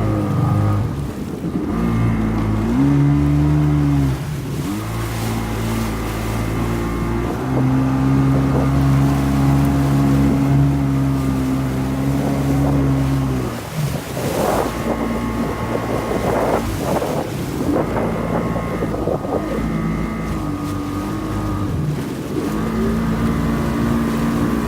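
Jet ski engine running under way, its note stepping up and down as the throttle is opened and eased off several times. In the middle the engine note fades under a stretch of rushing, splashy noise.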